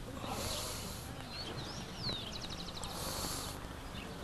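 Birds calling: a rising and falling whistled note about two seconds in, followed by a quick run of short chirps, over steady background noise with two brief bursts of hiss.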